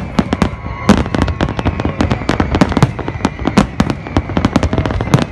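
Aerial firework shells bursting in a dense, rapid barrage, several sharp bangs a second overlapping with no pause.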